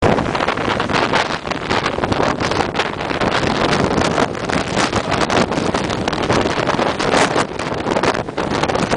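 Widebody jet airliner's engines at takeoff power, heard from behind: a loud, steady rushing noise from the jet blast, with gusts buffeting the microphone.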